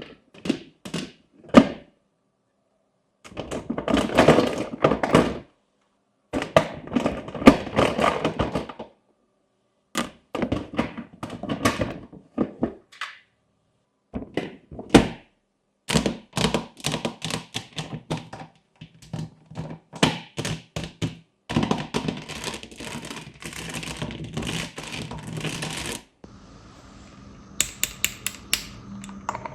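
Plastic fidget toys being clicked, tapped and handled: runs of sharp clicks and taps, with dense stretches of rapid clicking, broken by sudden silences. Near the end a steady hum comes in under a few more clicks.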